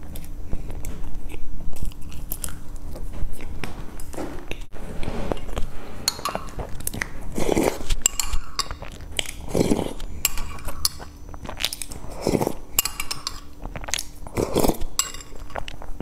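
Close-miked chewing and mouth sounds of a person eating, with light clinks of a metal spoon against a ceramic bowl. From about halfway, four louder sipping sounds come at the bowl, a couple of seconds apart.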